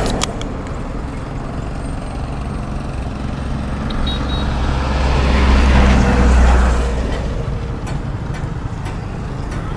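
Road traffic rumble: a heavy vehicle goes by on the road, its engine and tyre noise swelling to a peak about six seconds in and then fading.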